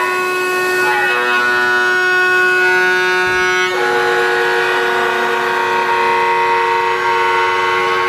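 CNC router milling a guitar neck: a loud, steady whine from the spindle, with a set of higher tones from the machine's drive motors that change pitch about a second in and again at about four seconds as the cutter moves.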